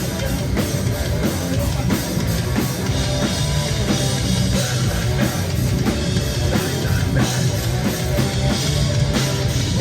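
Live hardcore band playing loud and fast: drum kit with heavy, distorted guitar and bass.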